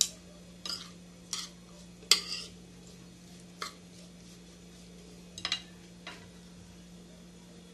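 A metal spoon clinking and scraping against a plate as a chopped seasoning mix is stirred: about seven separate clicks, the loudest about two seconds in, over a faint steady low hum.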